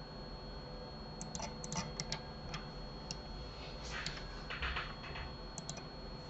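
Scattered clicks and taps of a computer keyboard and mouse being worked, a cluster of quick clicks about a second in and another around four seconds in, over a faint steady high whine.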